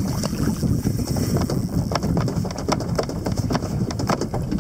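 Wind buffeting the microphone in gusts, with a scatter of irregular sharp ticks throughout.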